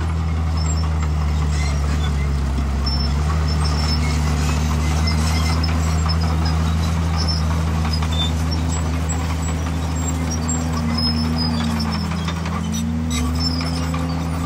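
Heavy diesel engine of earthmoving machinery running steadily under load, its pitch slowly rising and falling, with a brief dip near the end.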